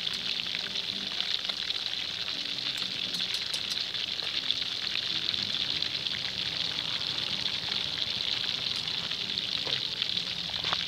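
Pieces of snakehead fish deep-frying in a wok of hot oil: a steady crackling sizzle.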